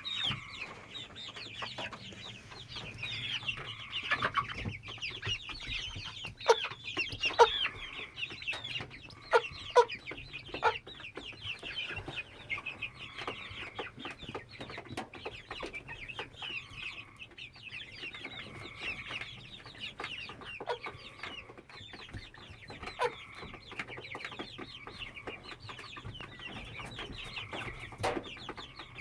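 A 10-12 week old hen (pullet) making a constant chicken sound: a nonstop run of short, quick, high-pitched notes with a few sharper taps mixed in. The owner is unsure whether this is normal; the bird is acting fine otherwise.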